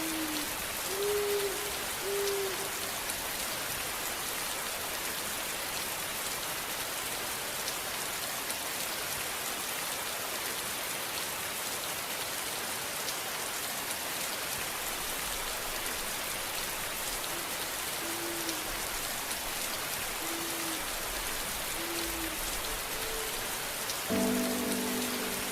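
Steady rain falling in a continuous patter. A few short, low hooting notes sound over it, near the start and again in the second half, and a louder cluster of notes comes near the end.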